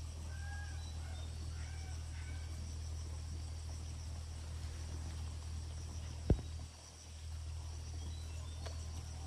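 Insects chirring steadily over a low hum, with a few short chirps in the first two seconds and one sharp click about six seconds in.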